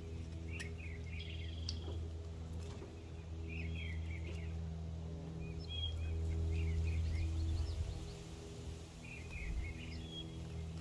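Songbirds chirping in short repeated phrases over a steady low hum, which grows louder for a couple of seconds past the middle.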